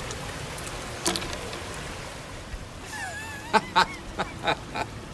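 A man laughing in about five short bursts, starting a little past halfway, over a steady background hiss, with a single click about a second in.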